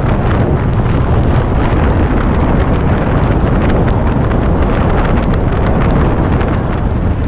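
Suzuki Bandit 1200 motorcycle at motorway speed in rain: a loud, steady rush of wind on the microphone over wet-road and riding noise, spattered with small ticks of raindrops hitting the camera.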